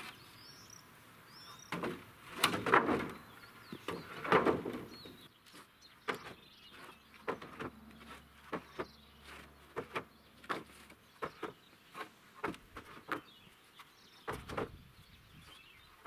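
Long wooden boards being pulled off a pile, dragged and handled, scraping twice early on, then a string of short sharp wooden knocks and clatters. Faint bird chirps near the start.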